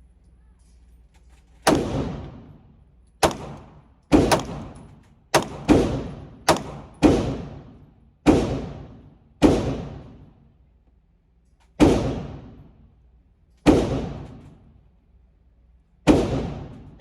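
Glock 19 9mm pistol fired about a dozen times at an uneven, unhurried pace while the red dot is sighted in. Each shot rings off in a long echo, as in an indoor range.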